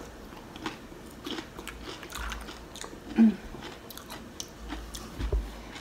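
Close-up chewing and biting of loaded nachos, the tortilla chips crunching in short crackles, with one louder mouth sound about three seconds in.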